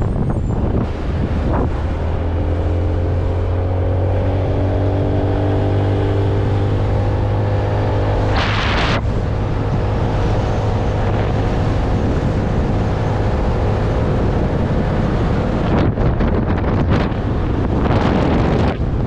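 Motolux MTX 125 scooter's 125 cc engine running under way, its pitch climbing gently over the first several seconds as it picks up speed. Wind buffets the microphone, with a brief loud rush of noise about halfway through and gustier wind near the end.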